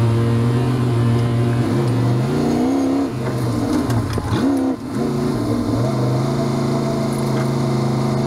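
Snowmobile engine running at a steady pitch, which rises and falls a few times as the throttle is worked, then settles steady again.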